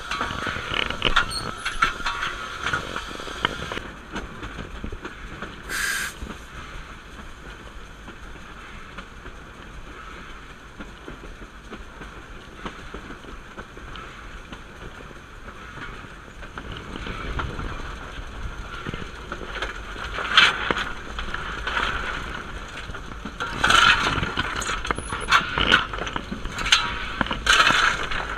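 Footplate noise of the moving narrow-gauge steam locomotive 14A, an NA class 2-6-2T: a continuous rattle and clatter of the cab. A sharp knock comes about two-thirds of the way in, and a run of sharp metallic knocks and scrapes fills the last few seconds.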